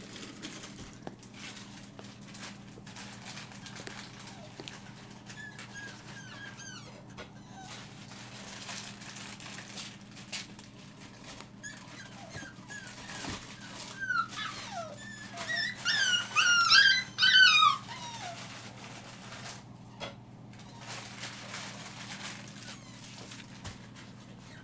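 Young puppies whimpering: a run of short, high, wavering whines that come thickest and loudest about two-thirds of the way through, with faint scratching and rustling between them.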